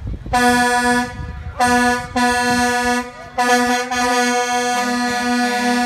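Truck air horn blowing a series of blasts on one steady pitch: three short ones, then a long one held about three seconds. In the last part a second, slightly lower horn joins in short pulses.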